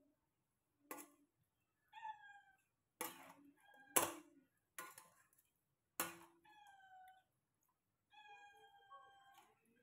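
Domestic cat meowing several times, the last call longer, mixed with a few sharp clicks or knocks, the loudest about four seconds in.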